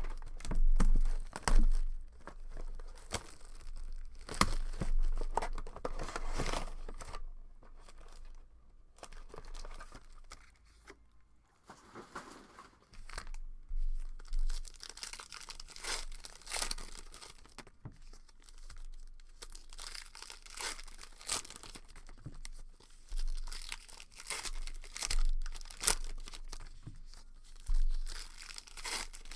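Wrapping and packs of a 2020 Phoenix football hobby box being torn open and crinkled by hand: irregular bursts of ripping and rustling.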